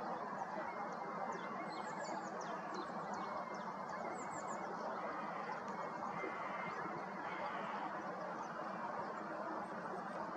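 Birds chirping: many short, high calls, each sliding downward, and a wavering trill, over a steady rushing background.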